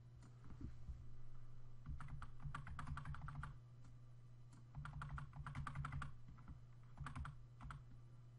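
Arrow keys on a computer keyboard tapped in several quick runs of presses, the first about two seconds in, nudging a shape into place a step at a time.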